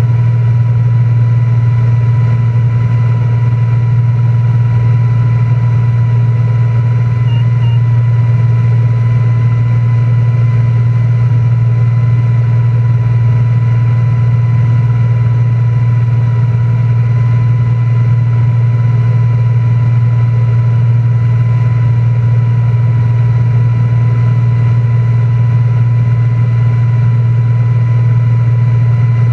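Single-engine light aircraft's piston engine and propeller droning steadily in cruise flight, heard inside the cockpit as a loud, unchanging low hum with a thin steady high whine above it.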